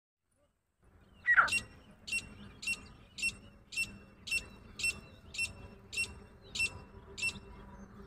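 Female grey francolin calling: a loud downward-sliding note about a second in, then a run of eleven short, high-pitched notes, evenly spaced at about two a second.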